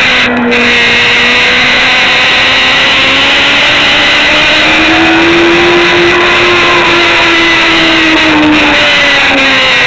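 Racing motorcycle engine pulling hard at high revs, heard onboard under heavy wind rush. About half a second in, the sound cuts out briefly and the note drops, as at an upshift. The pitch then climbs slowly through the middle and eases off near the end.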